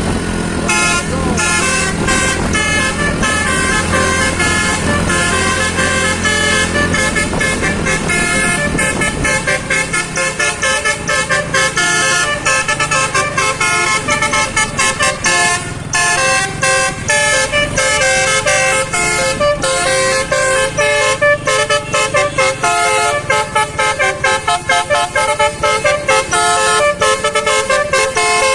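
Indonesian bus 'telolet basuri' musical air horn playing a fast melody of short notes without a break, with the bus's engine running low underneath for about the first third.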